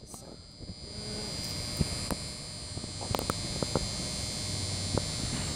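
Steady low hum with a few faint clicks over it.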